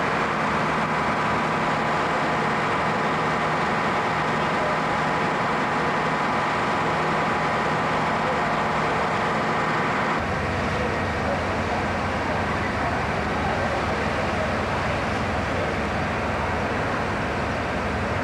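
Steady mechanical drone of fire apparatus engines running at a working fire. About ten seconds in the sound shifts to a heavier low rumble.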